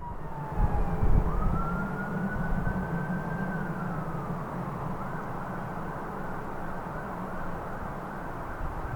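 Distant emergency vehicle siren: a slow wail that falls, rises and holds, then switches to a quick warbling yelp about five seconds in, over a steady low rumble.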